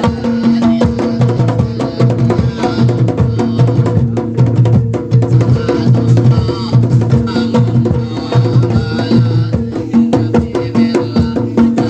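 Traditional Javanese bantengan accompaniment music: fast, dense drumming over steady ringing tones, playing on without a break.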